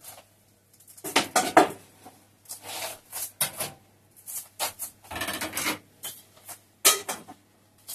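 Kitchenware being handled: a string of short knocks, clinks and scrapes as a lidded steel saucepan of vegetables is put on the stove, with a longer scraping sound about five seconds in.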